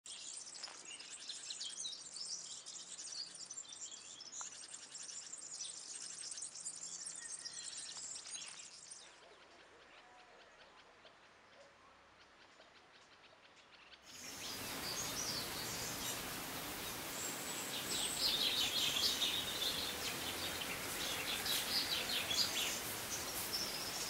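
Wild songbirds chirping and singing in high, quick calls. The sound drops quieter for a few seconds in the middle, then about halfway through a steady rushing hiss comes in under more bird calls.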